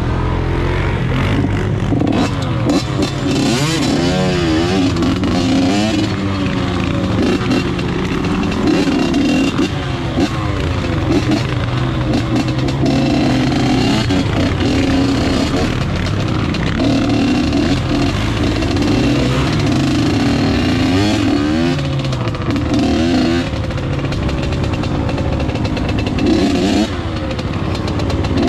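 Off-road vehicle engine running under way, its pitch rising and falling continually as the throttle is opened and closed.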